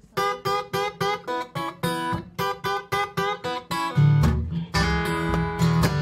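Eastman acoustic guitar played solo in a Delta/country blues style, opening the song with a run of picked treble notes at about four a second. Deep bass notes join about four seconds in.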